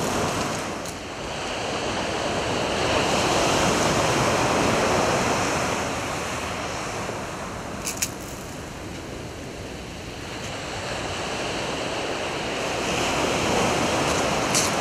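Waves breaking and washing up the beach, swelling and easing over several seconds, with some wind. A single sharp click about eight seconds in.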